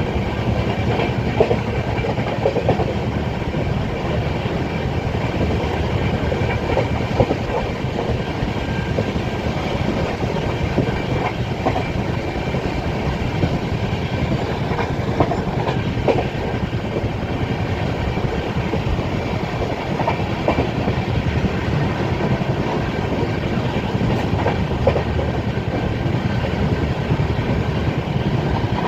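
Passenger train running steadily, heard from inside a coach: a continuous rumble of wheels on rail with scattered clicks as the wheels pass over rail joints.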